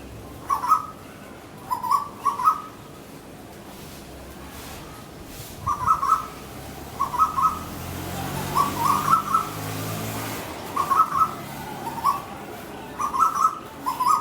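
Asian koel giving short bursts of rapid, clipped notes, about ten bursts at irregular one- to two-second gaps: the harsh calls koels make when fighting.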